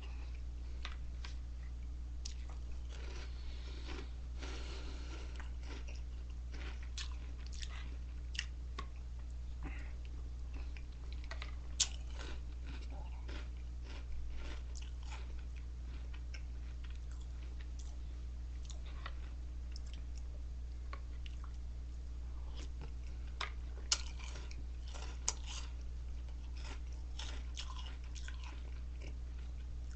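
A person chewing a mouthful of crunchy Reese's Puffs cereal, close to the microphone, with scattered crunches and a few sharper clicks over a steady low hum.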